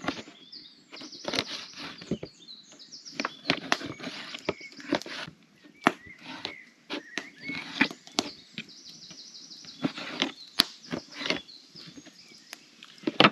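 Knife cutting bacon into pieces: irregular sharp knocks of the blade coming down, with birds chirping in the background.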